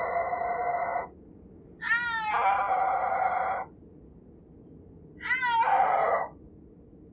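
Snow leopard yowling: a call ending about a second in, then two more drawn-out calls of one to two seconds each, a couple of seconds apart, each opening with quick wavering pitch sweeps before it holds.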